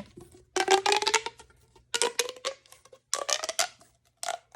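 Plastic pop tube fidget toy being stretched and squashed: four zipping rasps about a second apart, each with a faint rising tone.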